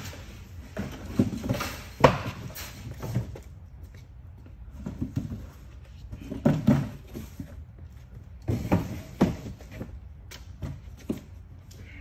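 Empty cardboard boxes being dropped and stacked into a vertical baler's chamber by hand: irregular thumps and scuffs of cardboard, the sharpest knock about two seconds in.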